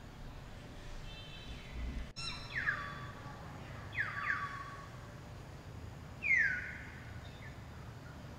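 High-pitched animal calls, each sliding steeply down in pitch and ending in a short held note: one about two and a half seconds in, two in quick succession about a second and a half later, and a louder one near the end.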